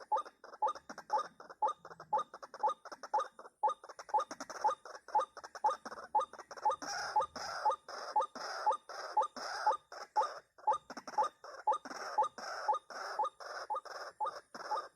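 White-breasted waterhen calling: a fast, rhythmic run of short repeated notes, about three a second, going on without a break.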